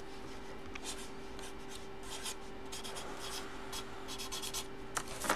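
Felt-tip marker writing on a white box: a run of short, faint scratching strokes as names are written out, over a steady low hum, with a couple of small clicks near the end.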